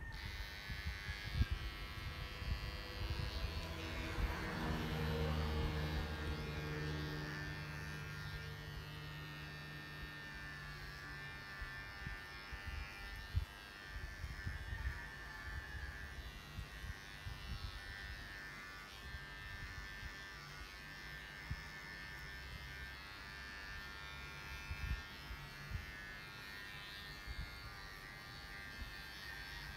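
Electric pet grooming clippers switched on and running with a steady buzz, with scattered light knocks.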